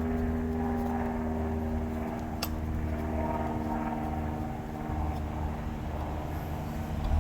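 A motor or engine running steadily, a constant low hum over a rumble. A single sharp click about two and a half seconds in.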